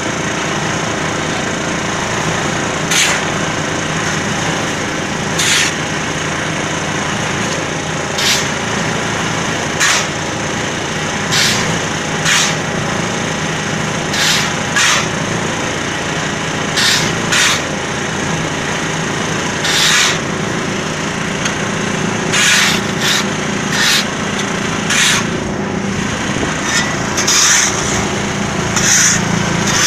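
Diesel engine of a 280-litre concrete mixer running steadily, with brief scraping sounds every second or two that come more often near the end.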